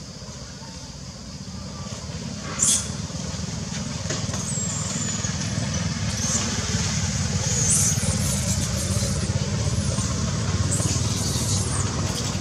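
High-pitched squeals from young long-tailed macaques. The sharpest comes about three seconds in, and several shorter ones follow. They sit over a low rumble that grows louder.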